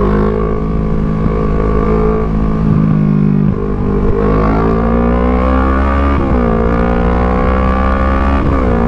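Kawasaki Z650's parallel-twin engine, through an Orion full aftermarket exhaust, pulling hard under acceleration: the note climbs steadily, drops abruptly at an upshift about six seconds in, climbs again and drops at another upshift near the end.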